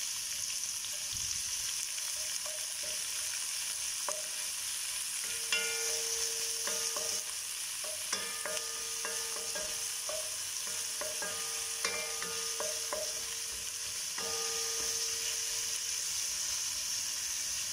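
Sliced onions sizzling steadily in hot oil in a wok, stirred with a wooden spatula that taps and scrapes against the pan now and then.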